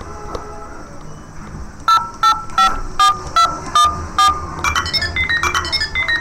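Electronic alert beeps of an emergency broadcast tornado warning: about eight short two-tone beeps at roughly two and a half a second, starting about two seconds in, then a quicker run of higher beeps that jump in pitch.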